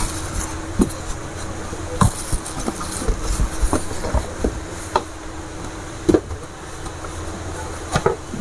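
Scattered knocks and bumps, about eight spread irregularly, as an electric dough maker is taken out and handled, over a steady low hum.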